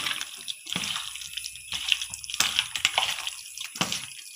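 A bare hand squeezing and turning raw chicken pieces in a wet spice marinade in a steel bowl: irregular wet squelches and slaps.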